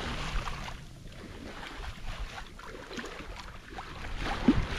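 Wind on the microphone and water washing along a sailboat's hull under sail, rising and falling unevenly, with a brief low tone near the end.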